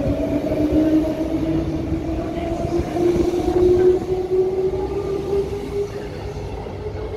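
Transperth A-series electric multiple unit accelerating, its motor whine rising steadily in pitch over a low rumble of wheels on rail. The sound eases a little near the end.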